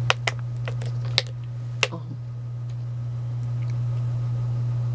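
A handful of sharp clicks and crackles from a plastic water bottle being handled, all in the first two seconds, over a steady low hum.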